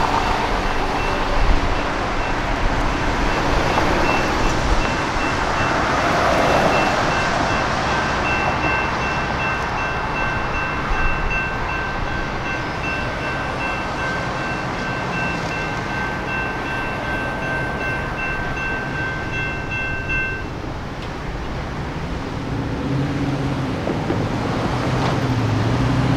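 Electronic grade-crossing bell (General Signals Type 2) ringing steadily as a light rail train goes through the crossing, over the noise of road traffic. The bell cuts off about 20 seconds in, when the activation ends and the gates go up. Car engines pick up near the end.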